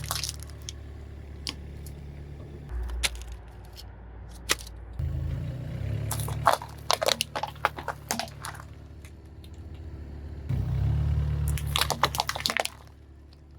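A car's tyre rolling over and crushing crunchy objects: several rounds of sharp cracking and crackling, strongest about halfway through and again near the end, over the low, steady hum of the car's engine.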